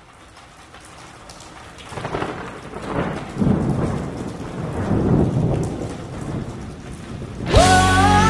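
Recorded rain and rolling thunder fading in, with several deep rumbles. About seven and a half seconds in, a rock band comes in with a held, bending lead line.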